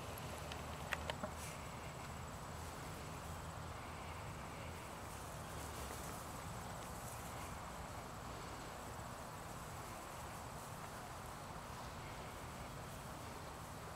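Faint steady outdoor background noise with a thin high hum, and three quick clicks about a second in.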